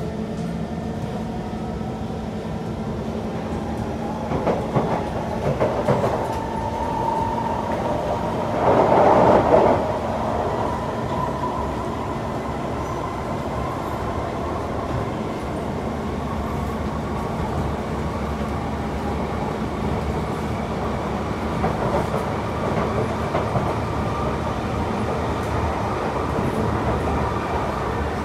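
Kawasaki C151 metro train running between stations, heard inside the carriage: a steady rumble of wheels on track with a faint motor whine that slowly rises in pitch, then holds. About nine seconds in, a louder rushing burst lasts a second or so.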